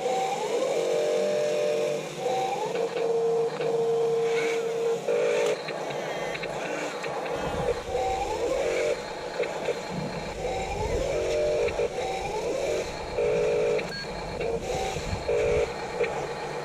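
Radio-controlled construction vehicles working: short spells of steady whine from their small electric motors, with brief rising whines as they start up. A low rumble joins from about halfway through.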